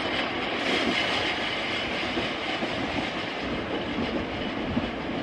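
Nankai electric train running along the track, a steady rumble of wheels on rail.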